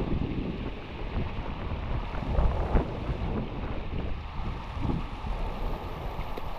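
Small mountain stream running over rocks, with wind gusting on the microphone.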